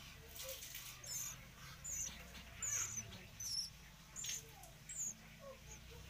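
Sooty-headed bulbul nestlings giving thin, high begging squeaks, short and repeated about once a second.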